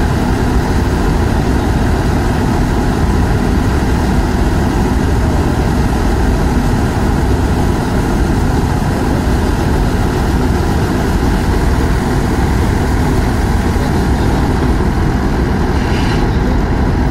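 Tractor-driven combine harvester working: the Swaraj tractor's diesel engine and the threshing machinery run steadily under load, a constant low hum with one steady tone, while threshed wheat grain streams out of the unloading spout.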